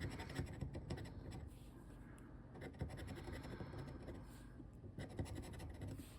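Scratch-off lottery ticket being scratched, the coating scraped off in quick, short, faint strokes.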